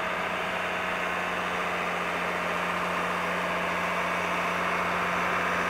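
New Holland tractor's diesel engine running at a steady, unchanging pitch as it drives over snow towing a trail-grooming tiller.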